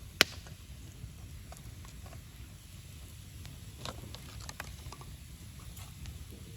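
Wood campfire crackling: one loud sharp pop just after the start, then scattered smaller crackles over a low steady rumble.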